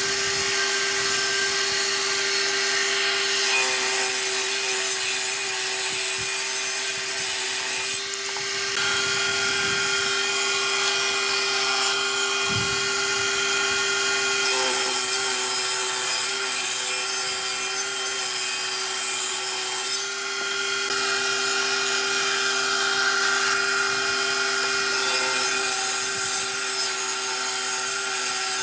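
Table saw running steadily and ripping old pallet boards lengthwise: a constant motor hum under the noise of the blade cutting wood, which eases briefly twice as one cut ends and the next board is fed in.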